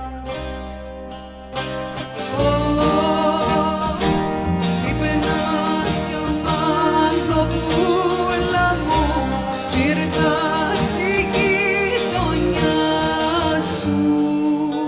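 Live Cypriot folk music from a small ensemble of laouto, viola and bass, with a vibrato-laden melody line coming in louder about two seconds in.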